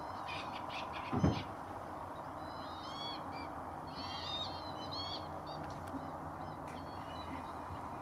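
Calls of a mixed flock of lapwings and gulls on open water: clusters of short, arching calls about three and four seconds in, over a steady hiss. A dull thump about a second in.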